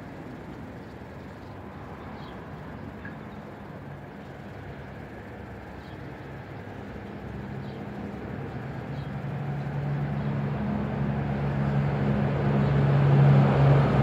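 An engine hum that grows steadily louder through the second half, over a steady rushing background.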